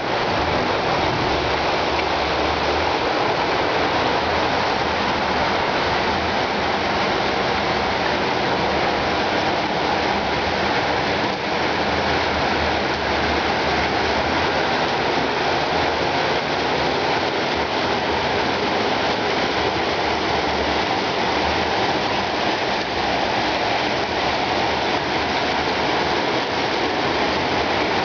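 Rain falling steadily, an even unbroken hiss of water.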